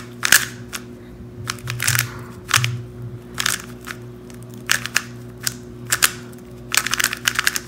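Plastic 3x3 speed cube being turned quickly during a solve: rapid clacking of the layers in short flurries, with brief pauses between them.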